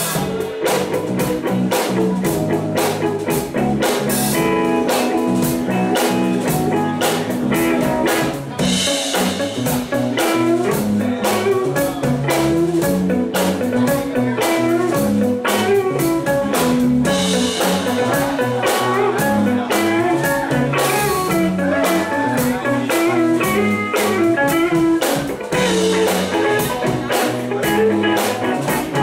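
Live band playing an instrumental funk tune: electric guitar, electric bass, drum kit and keyboard together, with a steady drum beat.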